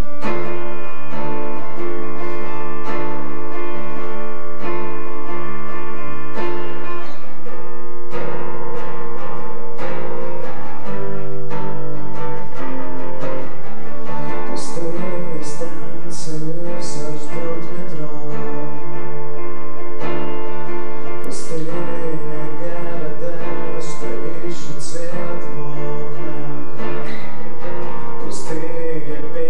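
Guitar music, starting suddenly at the very beginning.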